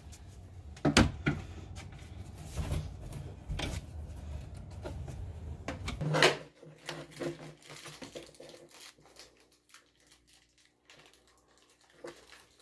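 Flat-pack cart assembly: knocks and handling of the panels, with a sharp knock about a second in and another about six seconds in, then quieter faint clicks of a hex key turning screws.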